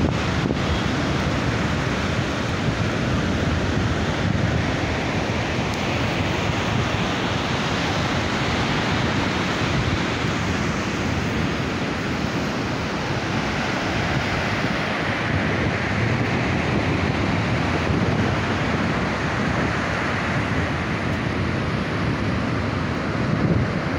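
Rough surf breaking and washing up a sandy beach in a steady rush of noise, with wind buffeting the microphone.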